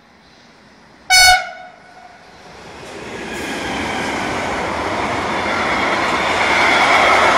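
One short, sharp train horn blast about a second in. Then the rolling noise of a BLS Cargo electric locomotive and its intermodal freight wagons passing close by, building steadily and loudest near the end.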